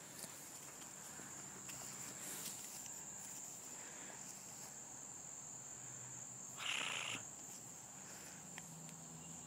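Faint outdoor background with a steady high-pitched insect buzz, like crickets, and one short rustle about seven seconds in.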